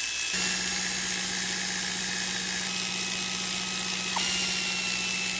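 Pneumatic air ratchet running steadily as it spins out the camshaft bearing-cap bolts on a cylinder head. A low steady hum joins the noise just after it starts.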